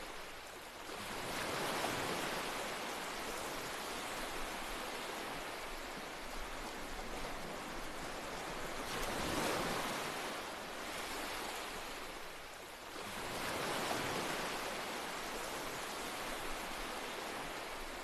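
Ocean surf: a steady rushing wash that swells three times as waves break, easing between them.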